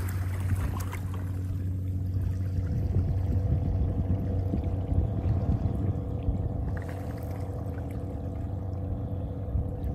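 Fishing boat's engine droning steadily across the bay, with water sloshing and lapping against the shore rocks close by.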